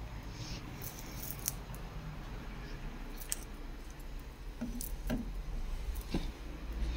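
Scattered light clicks, taps and rustles of handling: objects being moved and the phone being carried, over a steady low hum.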